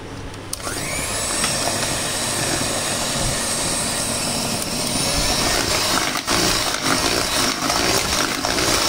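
Philips electric hand mixer switching on about half a second in with a rising whine, then running steadily, its twin beaters churning through thick cake batter.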